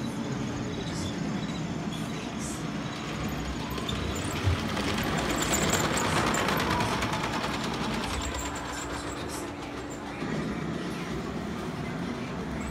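Electric model train running on its track. The rattle of its wheels and motor swells as the locomotive passes close by in the middle and then fades. A steady hum underlies it and stops about ten seconds in.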